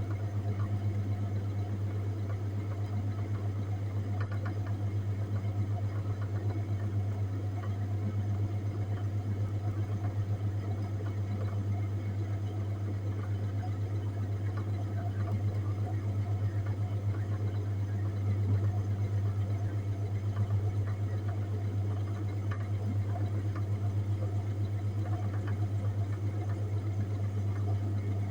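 Refrigerated display case running with a steady low hum.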